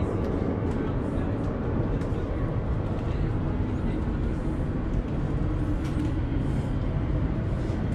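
Steady low rumble of background noise, with a faint knock about five seconds in.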